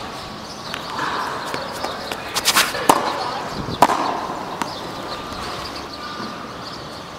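Frontón ball smacking against the court wall and racket: a quick cluster of sharp hits about two and a half seconds in, then single hits near three, four and four and a half seconds.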